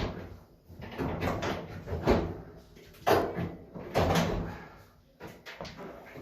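Sheet-metal dryer panels and parts being handled and fitted back during reassembly: a series of about six clunks and scraping rattles, roughly a second apart.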